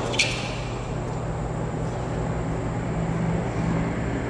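A single sharp tennis-ball impact just after the start, ending a rally, followed by a steady low background rumble with a faint hum.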